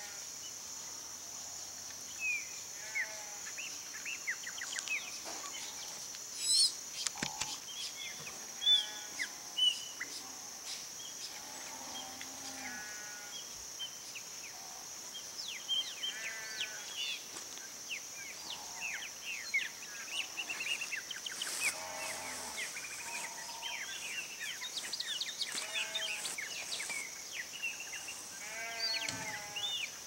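Songbirds at a feeder calling and chattering in short, quick, pitched notes, some in rapid runs, over a steady high-pitched insect drone.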